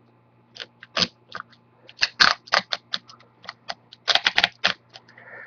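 Adhesive tape being peeled by fingernail off a laptop screen's video-cable connector: a run of irregular sharp clicks and crackles, bunched in two flurries, as the tight tape lifts.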